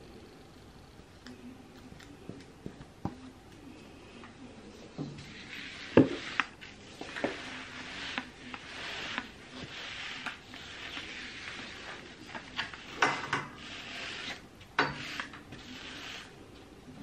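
Flat, bendable gap dust cleaner with a microfiber sleeve dragged back and forth across a hard floor under wire shelving. It makes a rasping swish from about five seconds in, with scattered sharp knocks, the loudest about six seconds in and again near thirteen and fifteen seconds.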